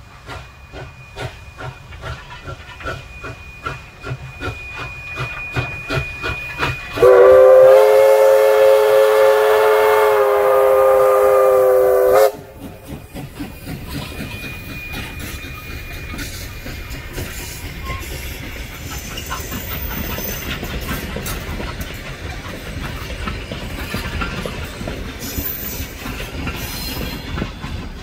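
Victorian Railways K class 2-8-0 steam locomotive K163 working a train, its exhaust beating in a steady rhythm. About seven seconds in its steam whistle sounds one long blast of about five seconds, the loudest thing here. Then the carriages roll past with a steady rumble and wheel clatter.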